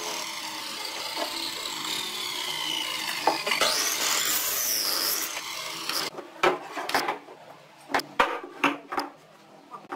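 Miter saw blade cutting through a piece of wood slab: a steady rasping saw noise whose pitch glides up and back down partway through, stopping abruptly about six seconds in. Then several short sharp knocks of wooden blocks set down on a wooden workbench.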